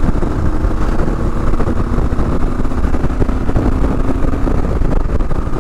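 2022 Kawasaki KLR650's single-cylinder engine running steadily at riding speed through a Lexx slip-on exhaust, with a low wind rumble on the microphone.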